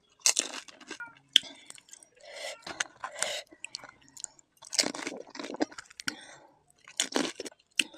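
Close-miked chewing of pani puri: crisp puri shells crunching and wet squishing from the spiced water, in irregular bites with a few sharp cracks.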